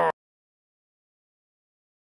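Dead digital silence, a gap between tracks. It comes just after a loud sound with falling pitch cuts off at the very start.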